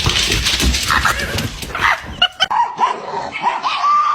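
A loud, noisy rush of sound, then a dog whining and yipping in short high cries that bend up and down, starting about two and a half seconds in.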